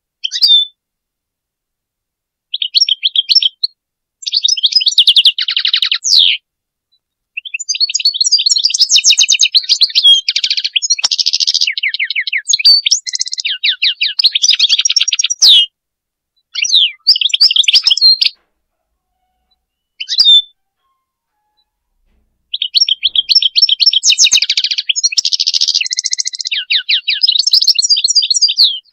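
European goldfinch singing: phrases of rapid, liquid twittering and trills separated by short pauses, with one long phrase near the middle and another near the end.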